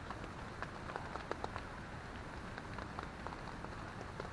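Rain falling on a tent, scattered drops ticking irregularly over a steady hiss.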